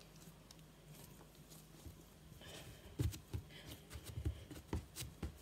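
Hands kneading a lump of homemade no-cook play dough. It is quiet at first, then from about halfway through come soft, irregular thumps as the dough is pressed and squeezed.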